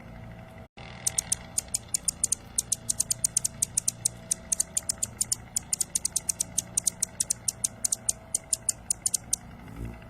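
Sparrows chirping: a rapid string of short, high chirps, several a second, starting about a second in and stopping near the end.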